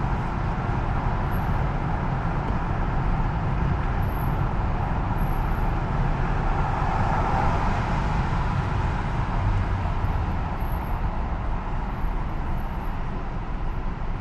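Steady road and tyre noise from a car driving through a road tunnel, heard from inside the cabin, with a heavy low rumble. It swells briefly about halfway through as another car passes close alongside.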